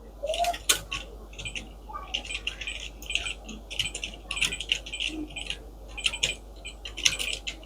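Fast typing on a computer keyboard: quick runs of key clicks, several a second, broken by short pauses.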